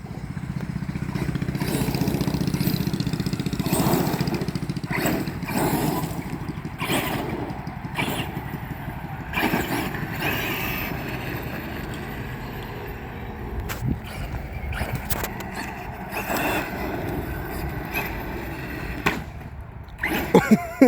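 Dirt bike engines revving up and down repeatedly over a steady low rumble.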